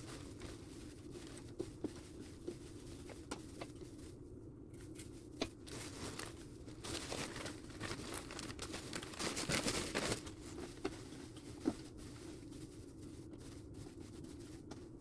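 Hands rustling and crinkling dry bedding material such as hay and paper while spreading it, with scattered light clicks and a denser stretch of crinkling from about seven to ten seconds in. A faint steady low hum runs underneath.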